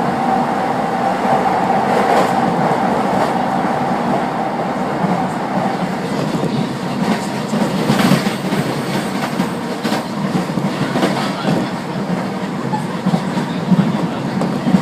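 Inside a JR East Keiyo Line rapid electric train running between stations: steady rumble and rolling of the wheels on the rails. A steady whine fades out in the first few seconds, and there are a couple of sharper clacks about halfway through.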